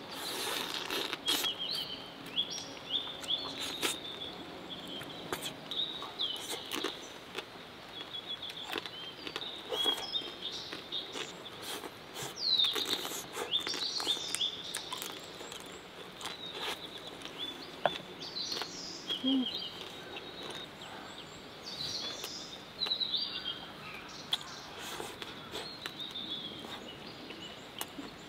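Small songbirds chirping and trilling again and again over a steady outdoor background, with scattered close clicks and taps of eating: a wooden spoon against a metal mess tin, and chewing of marinated crab and rice.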